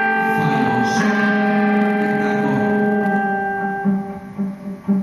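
A guitar chord ringing out and slowly dying away over a steady low drone. The chord thins out after about four seconds.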